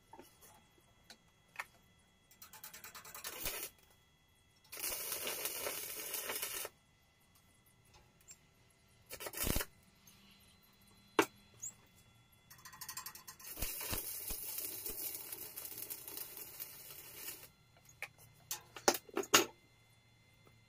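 Stick (arc) welding: the electrode's arc crackling and sizzling in three runs, a short one, a two-second one and a longer one of about five seconds. A few sharp metal knocks fall between the runs and near the end, from a hammer chipping off slag.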